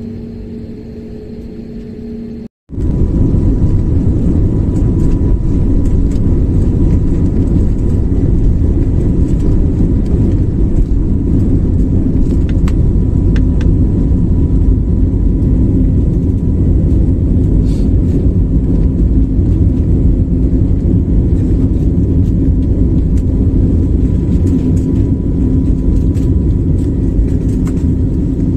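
Airliner jet engines heard from inside the cabin. A quieter steady hum for about two and a half seconds breaks off abruptly, then the loud, steady rumble of the engines at takeoff power runs through the climb-out.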